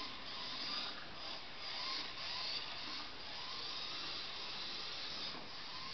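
Small electric motor of a toy radio-controlled car whining as it drives across a hardwood floor, speeding up and easing off in short surges.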